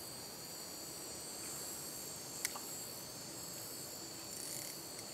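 Steady chorus of crickets trilling on an even, high pitch, with one sharp faint click about two and a half seconds in.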